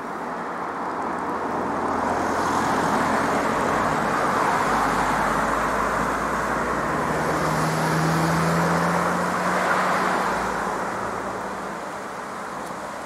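Motor vehicles passing close by on a mountain road. The tyre and engine noise swells from about two seconds in, peaks twice as cars go by, and fades near the end.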